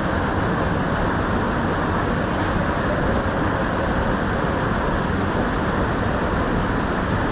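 Steady, loud rush of water falling over a large waterfall, an even noise with no breaks.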